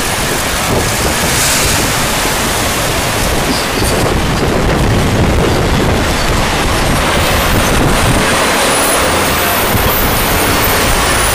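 Steady noise of city road traffic, with wind rumbling on the microphone.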